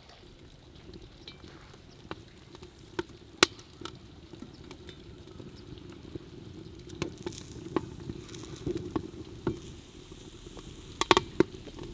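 Pieces of beef fat set one at a time into a hot kazan, each landing with a sharp tap. Under the taps runs a low, steady crackling sizzle as the fat starts to render.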